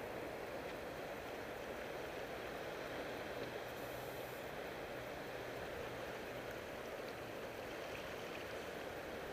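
Steady outdoor rushing noise at a harbour's edge, wind and water together, with a faint low hum for a few seconds in the middle.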